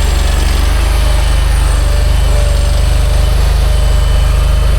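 Engine of a small earthmoving machine running steadily, a loud, even low drone with a regular pulse.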